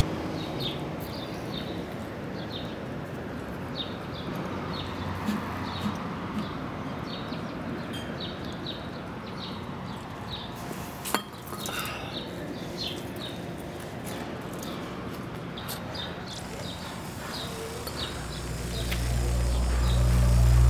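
Small birds chirping over a steady outdoor background, short high chirps every second or so. One sharp click about eleven seconds in, and a deep musical drone swells in near the end.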